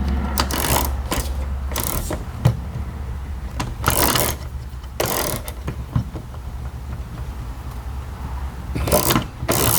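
Paintless dent repair tools working on an aluminum liftgate: a few short, scattered metallic clicks and rattles, over a steady low hum.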